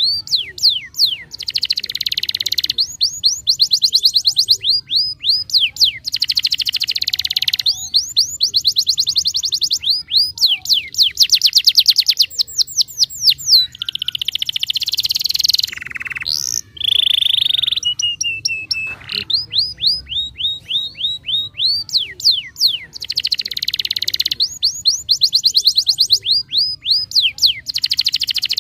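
Domestic canary singing continuously: fast trills of rapidly repeated downward-sweeping notes alternate with buzzy, rattling phrases. A short steady whistle comes about 18 seconds in.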